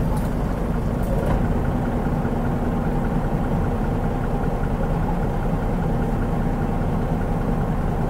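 Mitsubishi Fuso Aero Star city bus's turbocharged 6M70 straight-six diesel engine running steadily, heard from inside the bus as a low, even drone, with a couple of faint clicks in the first second or so.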